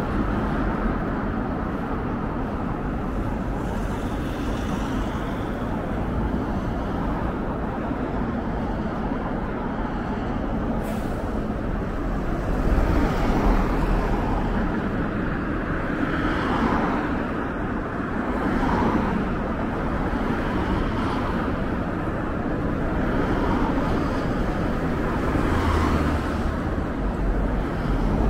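Street traffic: a steady road noise of cars driving past, swelling louder several times as vehicles pass close by.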